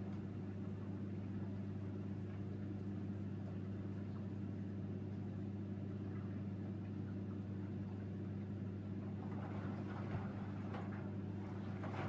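Hoover Dynamic front-loading washing machine tumbling wet laundry during a rinse: a steady motor hum with water and clothes swishing in the drum, the swishing growing stronger about nine seconds in.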